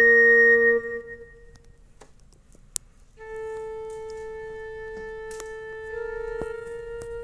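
Yamaha PSR-E263 portable keyboard playing a built-in preset song: a held chord stops about a second in, a single click sounds in the short pause, then a slow melody begins on long sustained notes in a wind-instrument voice.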